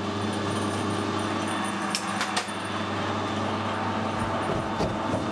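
Steady mechanical hum of workshop machinery, with two light clicks about two seconds in.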